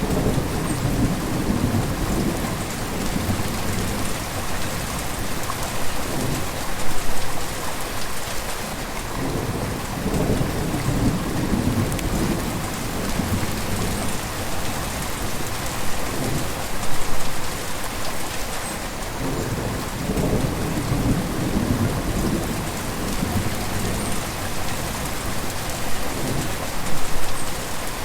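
River water flowing steadily, a full rushing hiss, with deeper surges that swell and fade every few seconds.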